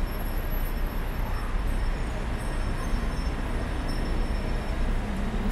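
Steady rumble of city traffic, heaviest in the low end, with no distinct events standing out.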